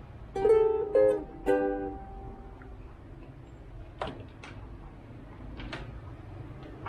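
Ukulele strings plucked three times in quick succession, the notes ringing out briefly, followed by a few light knocks of handling.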